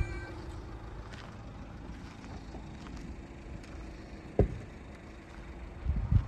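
Steady low outdoor rumble, with a single sharp knock about two-thirds of the way through and a few footsteps near the end.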